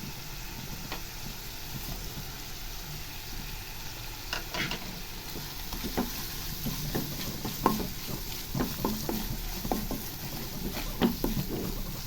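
Onion, ginger-garlic paste and spice powders frying in oil in a kadai: a steady sizzle, with a spoon scraping and tapping against the pan as the masala is stirred, the knocks coming more often in the second half.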